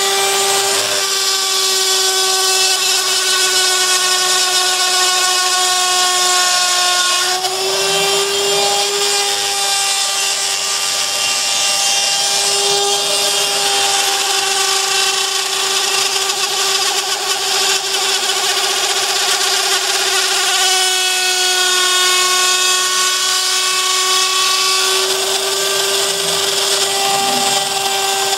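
Spindle motor of a Prusa i3 converted to a CNC mill, running with a steady high whine while it cuts. Its tone shifts slightly three times.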